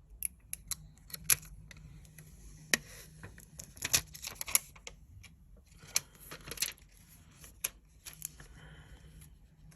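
Protective plastic film being peeled off the back of a replacement iPhone screen: irregular crackles and sharp clicks.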